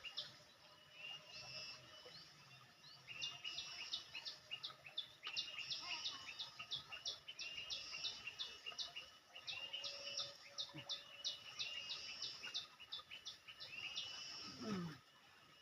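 A flock of small birds chirping: dense runs of short, rapid chirps, broken by brief pauses, over a faint outdoor background. A short falling sound comes near the end.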